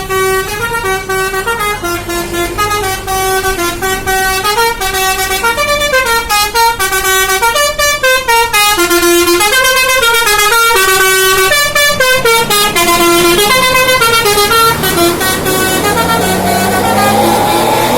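Indonesian bus's telolet horn, a multi-tone musical horn, playing a fast tune of short stepping notes. Near the end the tune stops and a single rising tone takes over.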